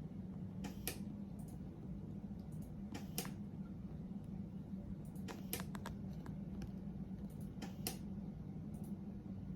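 Quiet room tone: a steady low hum with a few scattered sharp clicks, several of them bunched together about halfway through.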